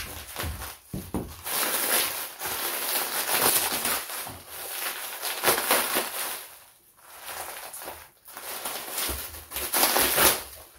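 Bubble wrap and plastic shrink wrap crinkling and rustling as they are pulled off by hand, coming in uneven spurts with a couple of brief pauses.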